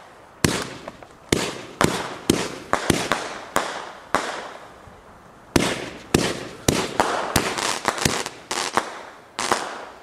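Fireworks going off overhead: a quick, irregular run of sharp bangs, each trailing away in an echo. It eases off for a second or so near the middle, then comes back as a denser volley of bangs.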